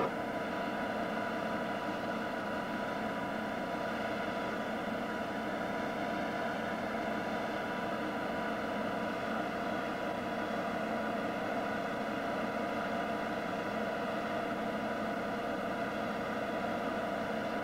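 Machinery on a moored ship running with a steady, unchanging hum.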